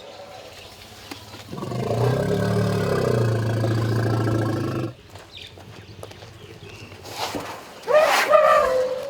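Asian elephants calling: a long, low rumbling call that rises and then falls in pitch for about three seconds, then a short, higher call falling in pitch near the end.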